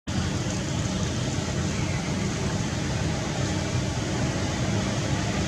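Steady rushing outdoor background noise with a low rumble, even throughout.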